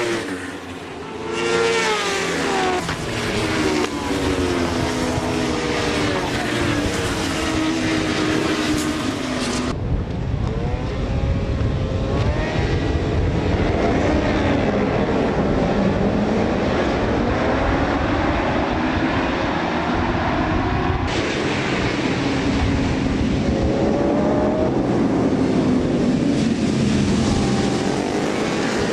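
Several racing motorcycle engines at high revs on a circuit, their pitch rising and falling as the bikes accelerate, change gear and pass by. There are abrupt changes about ten seconds in and again about twenty-one seconds in, where one stretch of track sound cuts to another.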